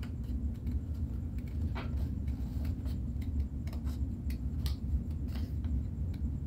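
Scissors snipping through a strip of accordion-folded paper in short, irregular cuts, about one or two snips a second, over a steady low hum.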